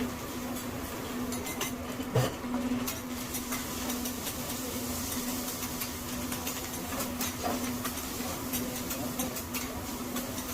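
Metal spatulas clacking and scraping on a hibachi griddle, with a sharp clank about two seconds in, over a steady low hum.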